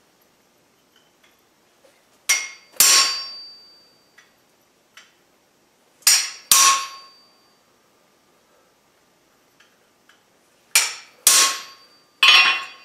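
Hammer blows on a hand chisel held against a flat mild-steel bar on the anvil, cutting a divot in the bandsaw-cut end to make a smooth transition. Three pairs of blows a few seconds apart, then another quick double strike near the end, each with a short metallic ring.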